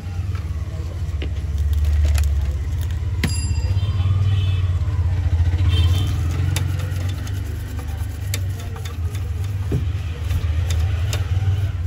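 A steady low rumble, swelling for a few seconds, with scattered small clicks and taps as a bottle of thinner and a brush are handled over a circuit board.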